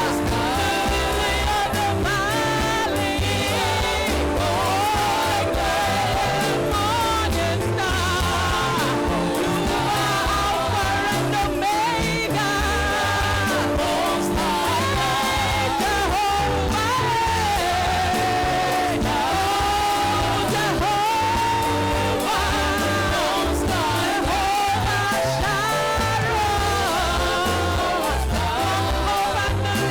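Worship song: a lead voice singing a wavering melody over held chords, a bass line and a steady beat.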